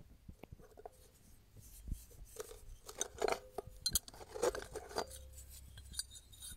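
Flat steel knife blanks being picked out of ash and charcoal briquettes in a grill bowl, clinking against each other and scraping through the ash in a run of irregular small clicks, a few of them ringing briefly.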